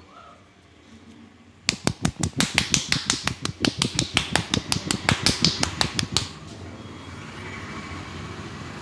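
A barber's hands striking in a fast run of sharp percussive head-massage slaps, about seven a second, starting a couple of seconds in and stopping abruptly after about four and a half seconds.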